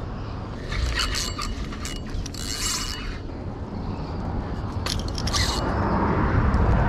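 Spinning fishing reel being worked by hand in three short bursts of mechanical clicking, with some seconds between them.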